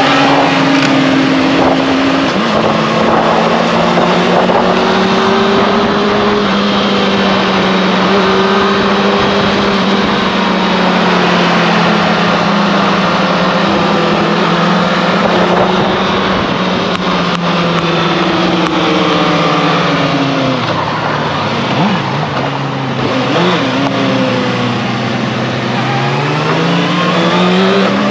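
Motorcycle engine running under way, its pitch drifting slowly, dropping about two-thirds of the way through and climbing again near the end as the throttle opens, over a steady rush of noise.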